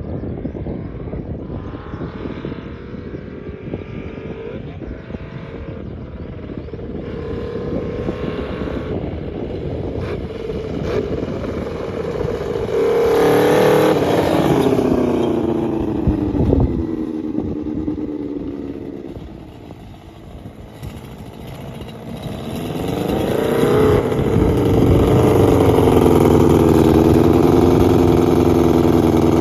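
Yamaha XJR400's air-cooled inline-four engine running as the motorcycle is ridden, revving up and easing off several times. It is loudest in the last few seconds.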